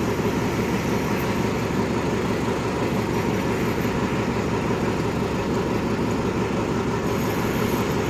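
Steady rumble of a diesel passenger train standing at the platform with its locomotive idling, waiting to be passed.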